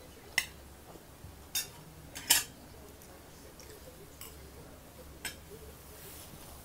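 Metal spoons clinking and scraping against ceramic plates while eating: about five sharp clinks, the loudest a little past two seconds in, over a low steady hum.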